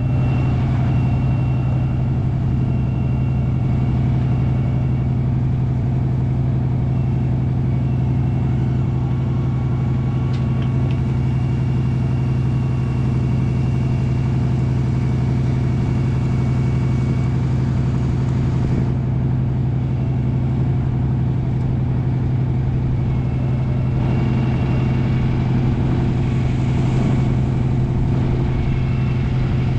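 Tow truck engine idling steadily, a constant low hum that does not change.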